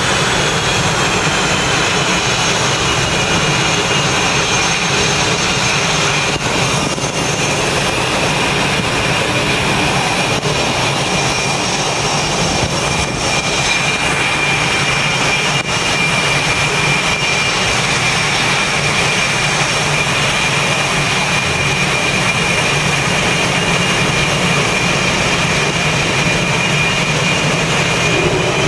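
F/A-18 jet engines running at taxi power: a loud, steady jet whine with high tones that ease slightly down in pitch over the first few seconds, then hold.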